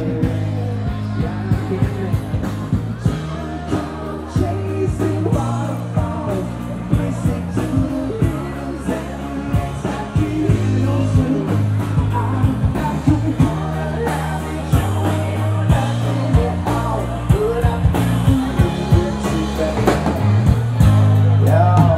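Live rock band playing: a singer over a steady bass line and drums.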